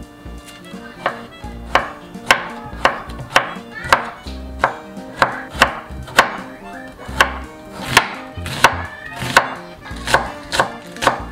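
Chef's knife slicing carrot strips and then green onion on a wooden cutting board: sharp knocks of the blade on the board, a little under two a second, starting about a second in.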